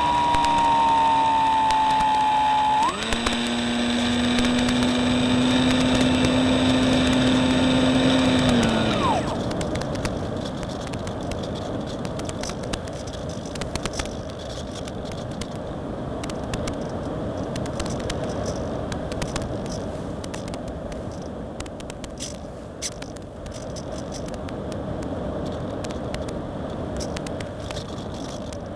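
Electric motor and propeller of a Reely Phönix RC model plane, heard through its onboard FPV microphone: it runs with a steady whine, drops sharply in pitch about three seconds in, then winds down and cuts out about nine seconds in. After that there is only a rushing air noise with frequent crackles.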